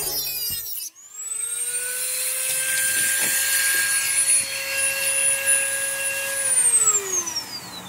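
Dremel rotary tool with a cut-off wheel running free at high speed, a steady high whine that comes up to speed about a second in. About six and a half seconds in it is switched off and winds down, its pitch falling away.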